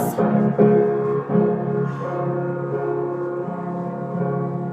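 Instrumental music with no singing: sustained keyboard chords held and changing a few times, with a resonant, bell-like ring.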